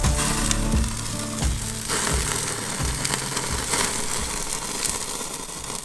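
Teriyaki-glazed salmon fillets sizzling on the grate of a small propane grill, a steady hiss. Background music with a beat plays over it for the first two to three seconds, then ends.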